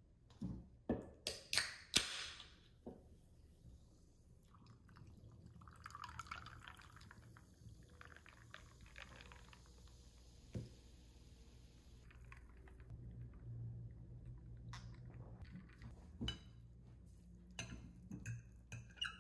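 Kitchen handling sounds: a quick run of sharp clinks and knocks in the first two seconds, then scattered quieter clicks and a soft stretch of liquid being poured.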